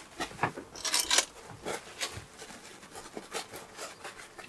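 Plastic keycaps being handled and rubbed: scattered light clicks and short rubbing, scraping noises, with a brief rustling rush about a second in.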